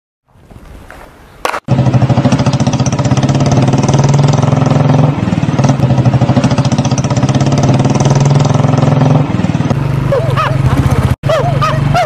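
Motorcycle engine running loudly and steadily at a constant pitch, cutting in abruptly a couple of seconds in. Near the end, a quick run of squeaky rising-and-falling notes, two or three a second, joins it.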